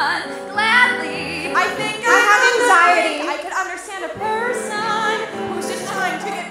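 Women's voices singing a show tune in close harmony, several voices at once with vibrato, over piano accompaniment.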